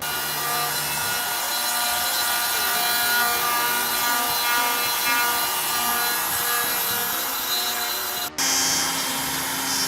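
Homemade CNC router's spindle running a ball-nose bit through wood on a 3D surfacing finish pass: a steady whine of several tones over rough cutting noise. It cuts out for an instant about eight seconds in.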